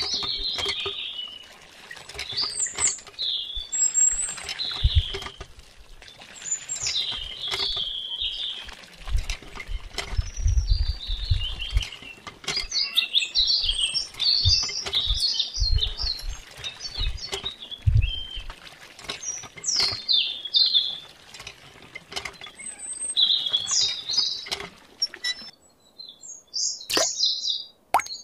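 Birds chirping in quick, varied high calls, with several low thumps around the middle and a short break in the chirping near the end.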